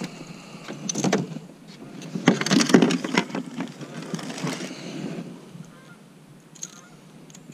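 Rustling, rubbing and knocking of clothing and gear against the body-mounted camera and plastic kayak while pliers are fished out, loudest in a burst about two to three seconds in and dying away by five seconds; a few faint short calls follow near the end.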